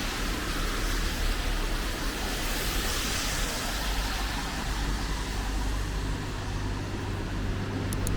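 Steady hiss of rain mixed with traffic noise from a wet road, with a low hum underneath.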